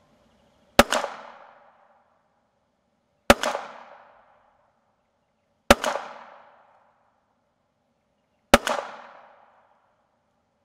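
Four single shots from an ISSC M22 .22-calibre semi-automatic pistol, fired slowly about two and a half seconds apart, each sharp crack followed by an echo that fades over about a second.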